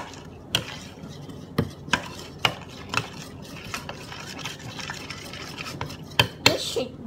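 Stirrers scraping through thick glue mixed with coconut oil for slime in ceramic bowls, with irregular sharp clinks as they knock against the bowl sides. The mixture is being stirred until it turns back into smooth glue.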